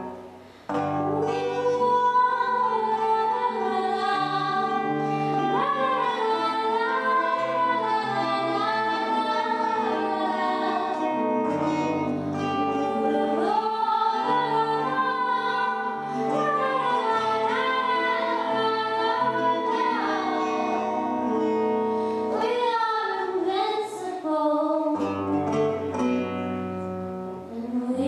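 A woman singing a slow song with her own acoustic guitar accompaniment, her voice holding long notes and gliding between pitches over strummed and picked chords. The music drops out briefly just after the start, then resumes.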